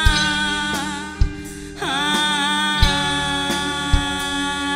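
Live rock band playing: a held melody line, sung or on electric guitar, bends in pitch and slides down partway through, over kick drum beats about every second and a quarter.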